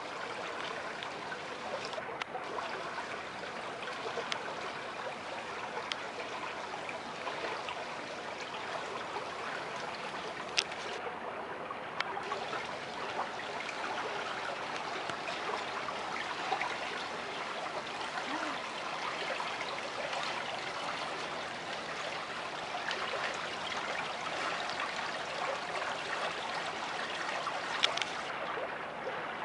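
Running water flowing steadily, a continuous fine rushing and trickling. A sharp click comes about ten seconds in and another near the end.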